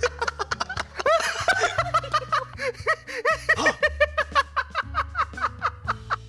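Men laughing hard in a long run of quick, repeated ha-ha bursts, over background music with a low bass line.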